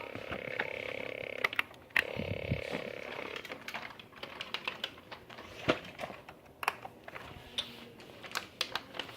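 Irregular clicks and taps of a small toy robot being handled while someone tries to switch it off, with a faint steady electronic hum from it that stops after about three seconds.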